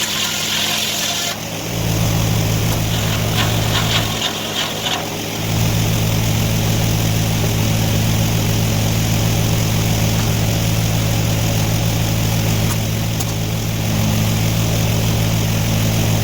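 An engine running steadily at a constant speed. Its hum drops out briefly about a second in and again around four to five seconds in, then holds even.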